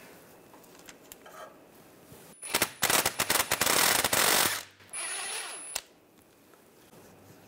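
Cordless brushless impact wrench hammering a 14 mm bolt loose from the CV axle's flange at the rear differential, a loud rapid rattle lasting about two seconds, then running again more quietly for about a second.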